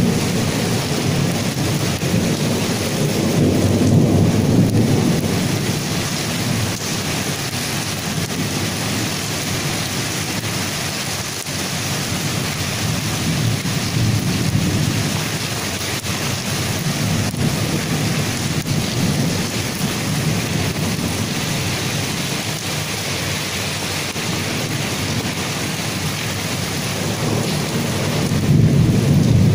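Heavy rain pouring steadily, with low rumbles that swell and fade three times.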